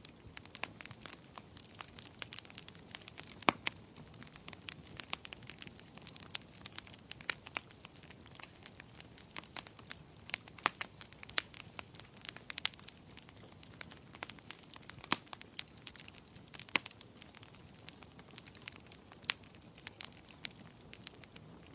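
Wood fire in a fireplace crackling: frequent irregular sharp pops and snaps over a soft steady hiss of burning.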